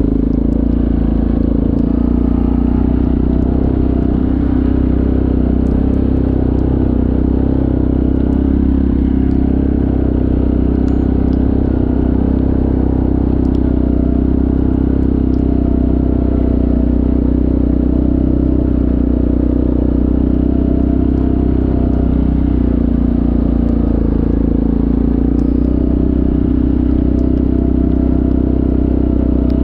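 Yamaha ATV engine running steadily while riding along a wet dirt trail, with faint scattered ticks over it.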